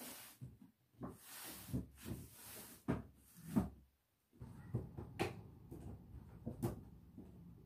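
Irregular knocks, clatters and thumps of objects being handled and set into a small plastic drawer unit, with a stretch of sliding or rustling about one to three seconds in.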